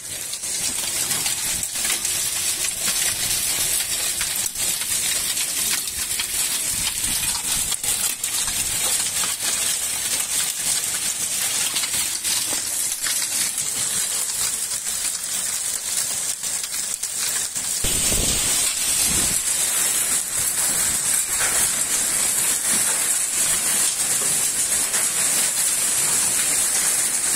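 Hailstorm with heavy rain: a dense, steady hiss of downpour peppered with many sharp clicks of hailstones striking a roof and pavement, growing louder about two-thirds of the way through.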